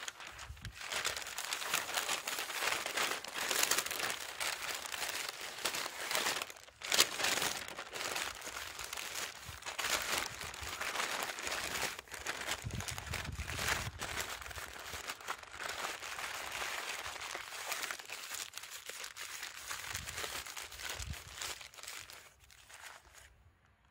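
Sheets of newspaper crinkling and rustling as they are folded, crumpled and twisted around a sweet potato to wrap it. The rustling comes in uneven handfuls, with one sharp crackle about seven seconds in, and dies away near the end.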